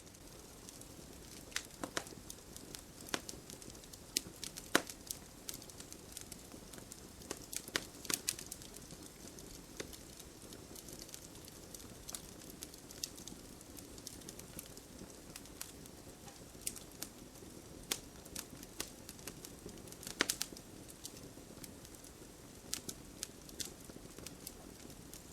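Campfire burning with a low steady hiss and frequent sharp, irregular crackles and pops from the burning wood.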